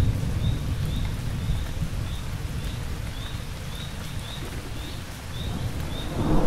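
Steady rain with crickets chirping about twice a second. The low rumble of thunder fades over the first couple of seconds, and another rumble swells near the end.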